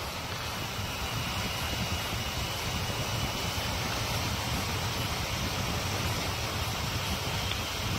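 Steady wind rush and road noise on a helmet-mounted camera while riding a Honda ST1300 Pan European touring motorcycle at about 55–70 km/h, with the bike's V4 engine running underneath.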